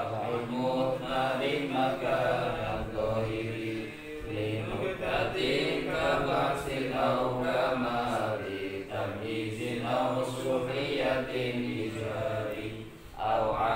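A man chanting a melodic religious recitation, with long held, bending notes and a short pause near the end.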